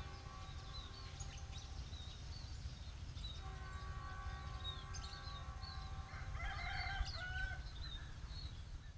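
Distant diesel locomotive horn sounding two long, steady chord blasts: one ending about half a second in, the other from about 3.5 to 7.5 seconds. A rooster crows near the end, small birds chirp throughout, and a low rumble runs underneath.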